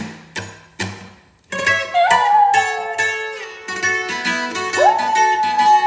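Acoustic guitar strummed chord by chord, joined from about two seconds in by a small dog howling along: a first howl that rises and then slowly sinks, then near the end a second one that swoops up and holds steady.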